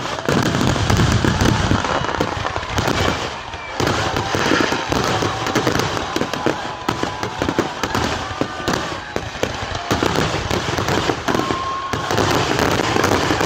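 Aerial fireworks shells firing and bursting in a dense grand-finale barrage: loud, rapid, overlapping bangs with almost no gap between them.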